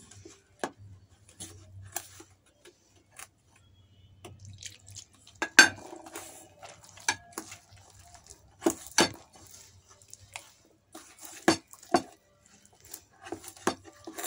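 Hand kneading sticky pizza dough in a stainless steel bowl: soft sounds from the wet dough and irregular clinks and knocks of the metal bowl. The loudest knock comes about five and a half seconds in.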